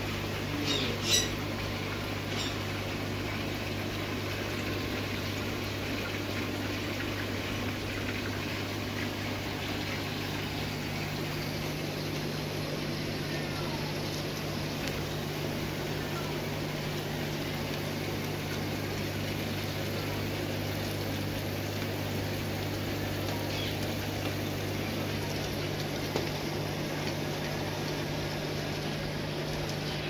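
Steady low hum of aquarium air pumps and filters running, with water bubbling and splashing over it. There are a few short sharp sounds in the first couple of seconds.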